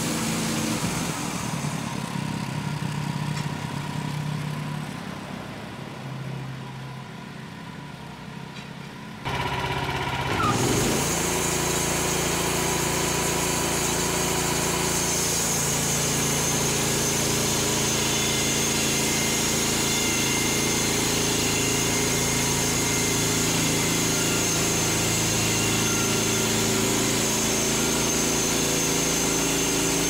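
Wood-Mizer LX55 band sawmill running: its gas engine and band blade make a steady mechanical sound. It is quieter for the first few seconds, changes abruptly about nine seconds in, then runs louder and steady, with a thin high whine joining at about fifteen seconds.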